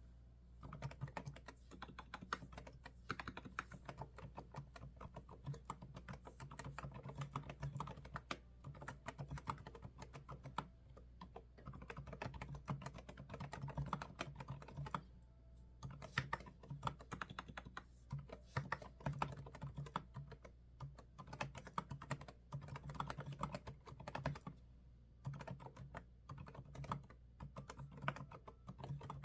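Computer keyboard being typed on fast, with keystrokes clattering in quick runs. There are brief pauses about halfway through and again a few seconds before the end.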